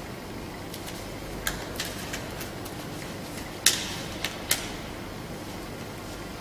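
Steady background hum of a large workshop, with a handful of short, sharp clicks and snaps from small objects being handled at a workbench; the loudest snap comes a little past the middle.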